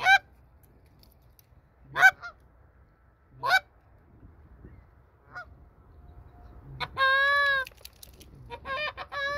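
I-57 short reed Canada goose call being blown: a few short, sharp honks a second or two apart, then in the last few seconds two long held honks with a quick run of short notes between them.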